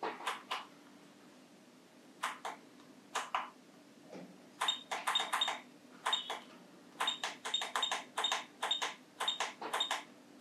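Membrane buttons on a Mechanic MA-SD01 soldering station being pressed over and over while scrolling its settings menu. Each press gives a short click, most with a brief high beep. A few scattered presses come first, then quick runs of presses in the second half.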